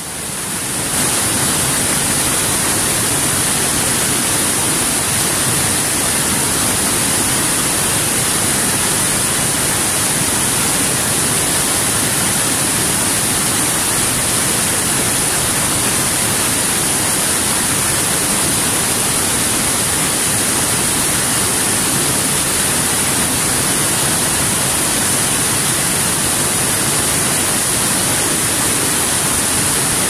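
Small waterfall cascading over rocks into a pool, a steady rushing of falling water that fades in over the first second.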